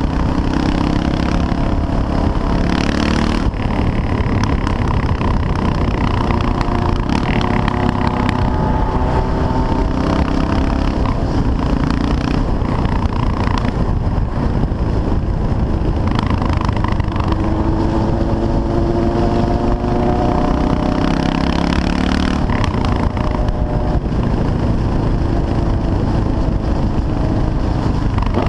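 CCM R30 supermoto's 644 cc Suzuki-based single-cylinder engine running at road speed, its pitch rising and falling several times with throttle and gear changes. Heavy wind rush on the bike-mounted microphone runs under it.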